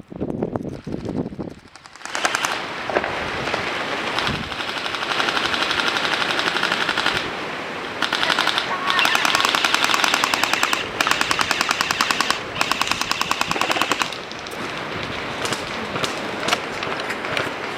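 Airsoft guns firing long full-automatic bursts of rapid clicks. The firing starts about two seconds in and goes on in long runs with short breaks between them.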